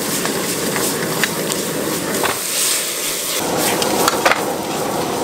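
Pork liver stir-frying in a hot wok: a steady sizzle with repeated scrapes and knocks of a metal ladle against the wok as the food is tossed.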